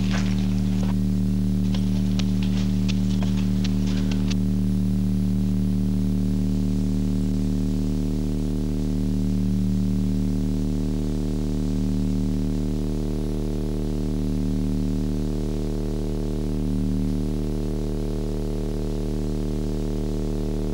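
A low, steady synthesizer drone that swells slowly every few seconds. Crisp crunching footsteps in snow sound over it during the first four seconds, then stop.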